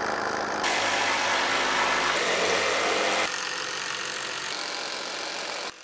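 Cordless drill/driver running steadily, driving long timber screws into a wooden beam and post, in a few back-to-back stretches that shift in level and cut off abruptly near the end.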